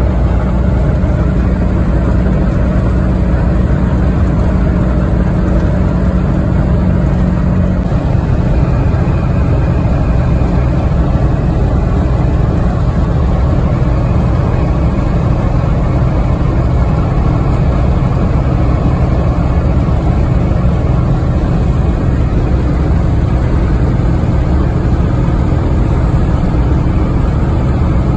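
Ford 7.3 Powerstroke turbo-diesel V8 in a 1996 F350 cruising at highway speed, heard from inside the cab: a steady engine drone with road noise. The engine note changes about eight seconds in.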